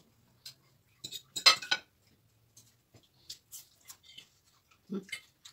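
Metal forks and knives clinking and scraping on plates as two people eat, with a cluster of louder clinks about a second and a half in.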